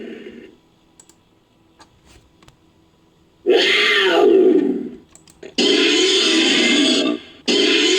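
Creature sound effects built from animal roar recordings: a roar dying away, a pause of a few seconds, then a loud growling call, followed by two long roars with a short break between them.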